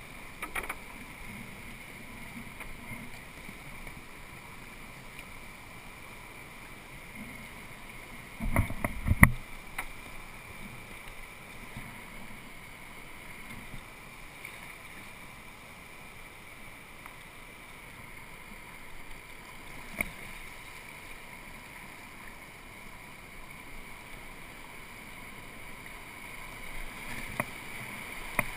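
Kayak moving down a calm river: a steady low rush of water around the hull and paddle, with one brief loud bump about nine seconds in, and the rush of a rapid ahead growing louder near the end.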